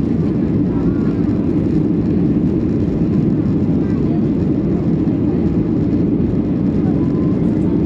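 Steady engine and airflow noise inside the cabin of a Boeing 737-800 climbing out after takeoff, its CFM56-7B turbofans giving a deep, even drone with no changes.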